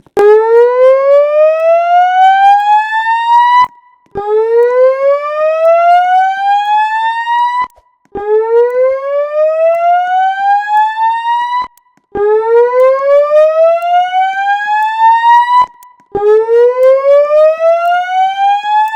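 Notifier voice evacuation system speakers sounding the evacuation alarm tone: a slow whoop that rises in pitch for about three and a half seconds, cuts off, and repeats every four seconds, five times.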